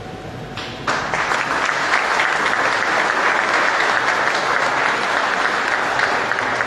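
A small audience applauding, the clapping setting in sharply about a second in and continuing steadily.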